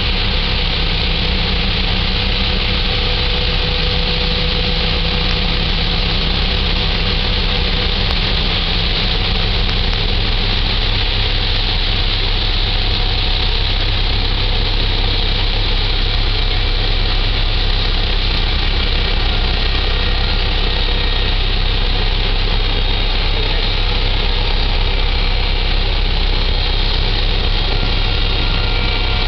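The diesel engine of the coaster Largona running steadily, a constant low drone, as the cargo ship passes along the canal. A steady hiss lies over it.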